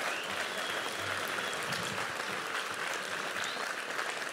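Live stand-up audience applauding steadily in response to a punchline.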